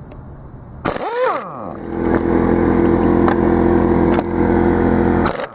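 Power tool motor, likely loosening the mower wheel's nut: it starts about a second in with a quick sweep in pitch, then runs at a steady pitch until it stops near the end.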